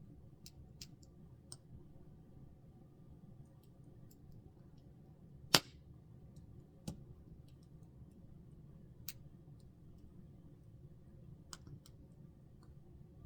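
Wood campfire crackling, with scattered small pops and one sharp loud crack about five and a half seconds in, over a low steady background hush.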